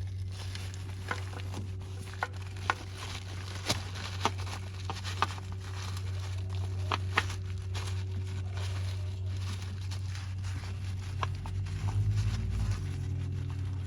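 Light clicks, taps and scrapes from hands working a new oil filter onto the engine, over a steady low hum.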